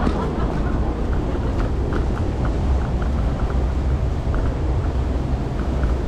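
Ride noise from an electric kick scooter on a paved street: a steady low rumble of wheels and wind on the microphone, with scattered faint light ticks.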